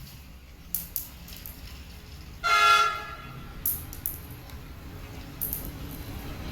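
A model train locomotive's horn toots once, a single pitched note about half a second long, about two and a half seconds in. A few sharp clicks come before and after it.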